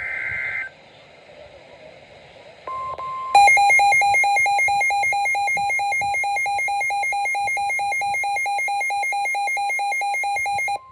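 A NOAA Weather Radio tornado-warning alert: a short screech of SAME digital header data, then the steady 1050 Hz warning alarm tone, and then a loud electronic alarm beeping several times a second for about seven seconds before it cuts off.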